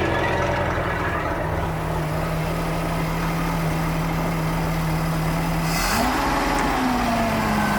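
Boat engine running steadily in reverse, its note rising briefly about six seconds in with a short rush of noise, then easing back down. The drive is not going into gear, so nothing behind the engine is turning.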